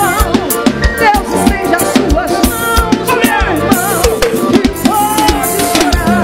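Live band playing an instrumental passage, a drum kit keeping a steady beat under accordion and keyboard melody lines.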